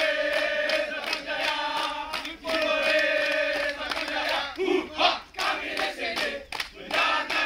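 A group of men chanting in unison: two long held notes, then a run of short shouted phrases.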